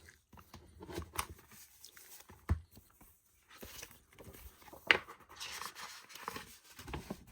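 Light handling noises of glossy poster paper: soft rustling and sliding, with a few small taps.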